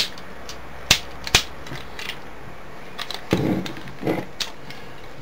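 Plastic parts of a Masterpiece Megatron transforming toy being handled and moved: a few sharp clicks and clacks, the loudest near the start and about a second in, with softer handling noises later.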